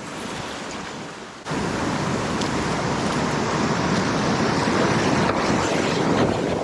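Whitewater rushing around a kayak in a river gorge rapid: a steady rush of water noise that jumps louder about a second and a half in.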